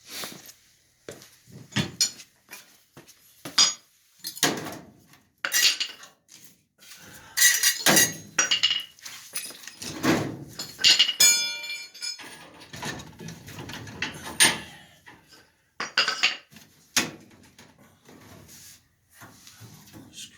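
Irregular metallic clanks, knocks and clinks of tools and furnace sheet-metal parts being handled, with a short ringing metal tone about eleven seconds in.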